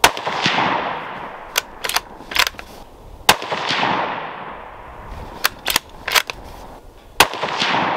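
Three rifle shots from a bolt-action Ruger American Predator in .223, firing steel-cased rounds, about three and a half seconds apart, each trailed by a long fading echo. Between shots the bolt is worked, three sharp metallic clicks each time as the spent case is ejected and a new round chambered.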